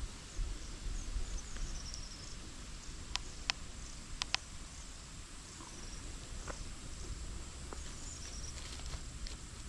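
Quiet outdoor ambience with a low rumble throughout, four sharp clicks in two pairs about three to four and a half seconds in, and faint high chirps.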